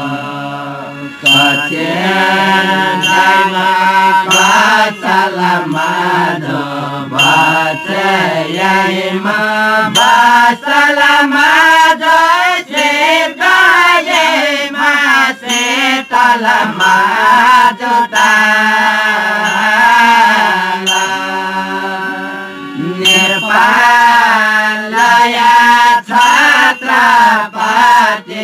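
Group of Jyapu singers chanting a Newari devotional folk song in unison, with harmonium, tah (small hand cymbals) and lalakhi (barrel drum) accompaniment; repeated cymbal and drum strokes run under the singing.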